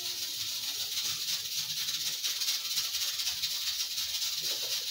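Fresh green beans being sliced by hand with a small knife: crisp cutting and rustling of the pods, over a steady hiss.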